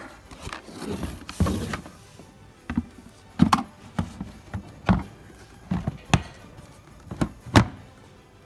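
Handling noises from a Fubag WD 3 construction vacuum cleaner: a brief scraping rustle, then a string of separate sharp knocks and clicks about every half second to second.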